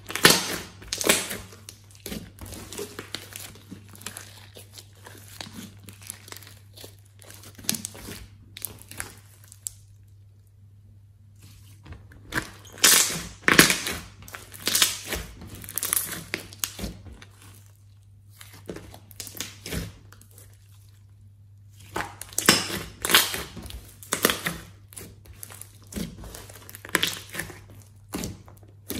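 Large lump of red slime squeezed, folded and pressed by hand, giving sticky, wet crackling in three bouts with quieter stretches between, over a faint low steady hum.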